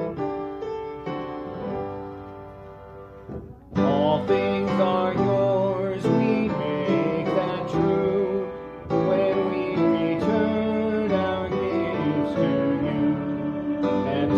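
Hymn music: a piano plays the introduction, then about four seconds in, voices begin singing the hymn over the piano accompaniment.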